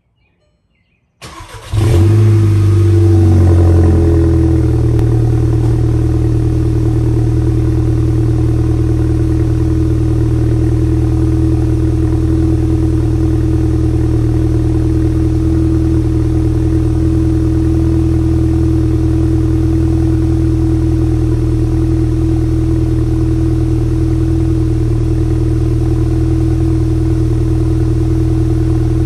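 Cold start of a Mk6 VW GTI's turbocharged 2.0-litre four-cylinder through an XForce catback exhaust with the stock downpipe: a brief crank about a second in, the engine catches, runs a raised fast idle for a couple of seconds, then settles into a steady, deep idle.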